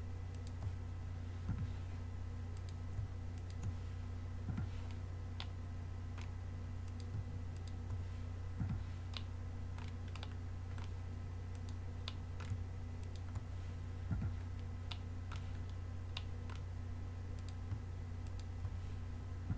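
Computer mouse clicks and keyboard key presses, one at a time at irregular intervals, over a steady low hum.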